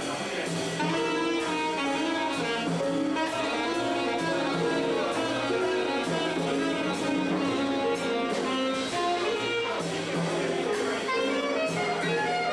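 Small jazz band playing live: saxophone carrying the melody over keyboard, drum kit and upright bass.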